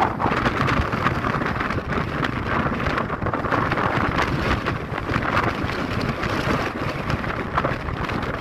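Wind blowing hard and buffeting the microphone: a continuous rushing noise with a low rumble underneath.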